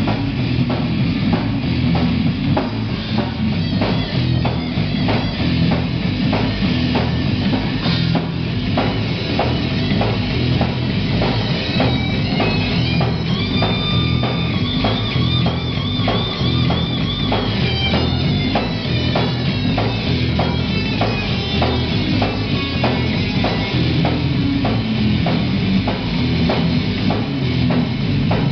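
Live rock band playing loud and fast: drum kit, electric guitar and electric bass through small amplifiers. A high note wavering in pitch rises above the band about halfway through.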